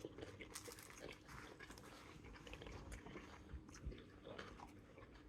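Near silence, with a few faint, scattered small clicks.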